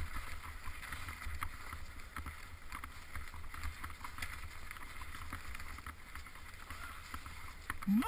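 Bicycle riding along a snowy trail: tyres crunching through packed snow with small clicks and rattles from the bike, over a low wind rumble on the microphone. At the very end a person's voice cuts in with a rising cry.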